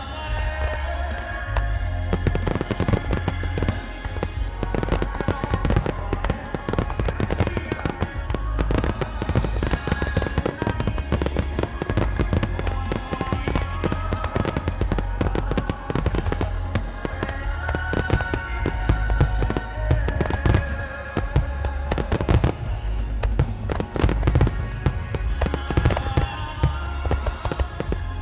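Starmine fireworks display: a rapid, continuous barrage of shell bursts and crackling with deep booms, over loud music from loudspeakers.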